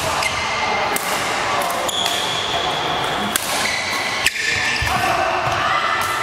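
Badminton rackets hitting shuttlecocks in several rallies, with short high squeaks of court shoes on the floor and voices in the background; a sharp hit about four seconds in is the loudest.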